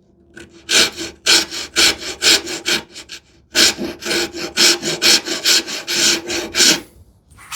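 Wood rasp filing a small wooden piece to a curve, in quick strokes about three a second, in two runs with a brief pause near the middle.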